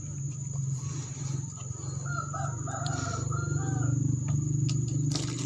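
A rooster crowing once in the background, starting about two seconds in and lasting about two seconds, over a steady low hum. A few light clicks of jars being handled.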